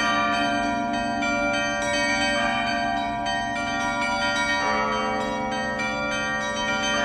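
Russian church bells rung by hand: several bells of different pitches struck in quick succession, their tones overlapping and ringing on, over a steady low bell hum.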